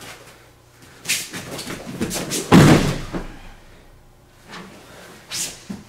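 Judo throw (tai otoshi): gi fabric rustling and feet shifting on the mat, then one heavy thud about two and a half seconds in as the thrown partner lands on the judo mat, followed by a brief rustle.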